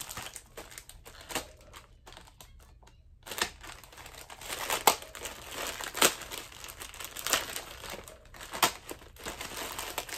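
Plastic poly mailer bag crinkling as it is torn open by hand and the garment inside pulled out, quieter at first, then a run of sharp crackles from about three seconds in.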